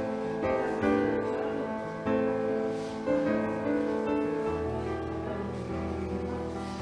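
Background music: a slow, gentle piano piece, soft notes held and changing about once a second.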